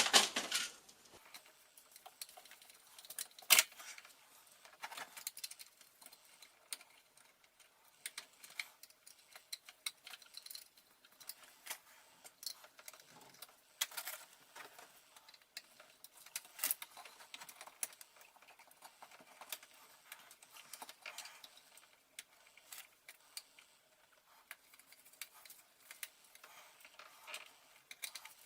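Scattered small clicks, taps and light metallic rattles of hands fitting a new USB double wall socket, handling the faceplate, cables and screws. The sharpest click comes about three and a half seconds in.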